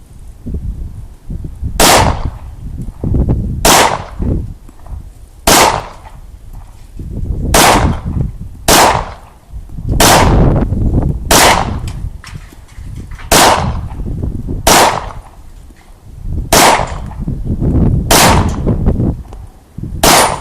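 Glock 22 .40 caliber pistol firing about a dozen single shots, one every second and a half to two seconds, each a sharp loud crack with a short echo.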